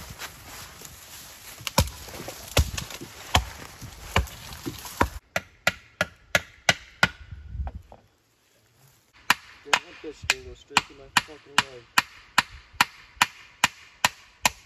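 Hammer driving nails through pallet boards into wooden fence posts: a run of sharp, evenly spaced blows, about two to three a second, in the second half. Before that, the first five seconds are rustling with scattered knocks.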